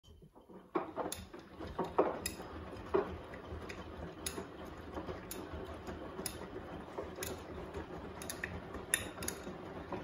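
Front-loading washing machine tumbling a wash load: a steady low hum with a clink or knock about once a second as the clothes turn over in the drum.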